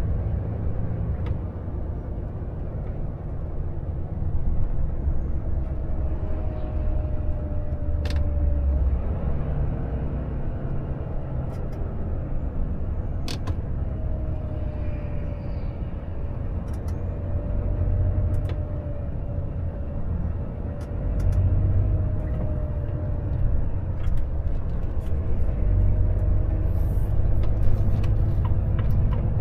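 Volvo FH 460 truck's 13-litre straight-six diesel and road noise heard from inside the cab: a steady low rumble as the truck slows, with a faint wavering whine and a few sharp clicks, more of them near the end.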